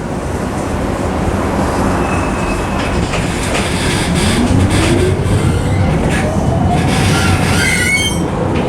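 Tram running on rails: a steady rumble with scattered clicks, and a motor whine rising in pitch from about four seconds in as it speeds up. Brief high wheel squeal near the end.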